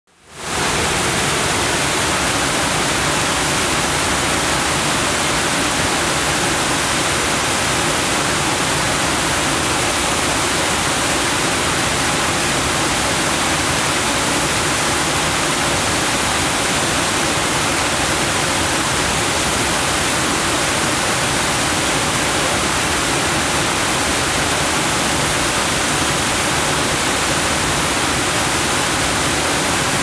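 Whitewater rushing over a wide, low river waterfall: a loud, steady, unbroken roar of falling water that fades in at the very start and holds even throughout.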